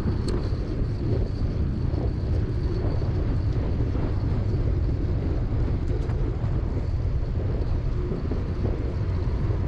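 Steady wind rushing over an action camera's microphone on a moving road bike at about 15 mph, a low rumble with no breaks.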